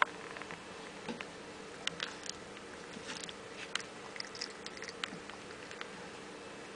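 Three-week-old golden retriever puppies play-biting and mouthing each other: scattered soft snaps and clicks of little jaws and teeth at irregular intervals, with a few brief high squeaks near the middle.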